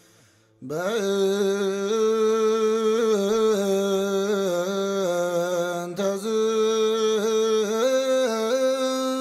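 A voice singing an Ethiopian Orthodox mezmur to Mary, entering about half a second in and singing long held notes that step and slide between pitches in a chant-like melody.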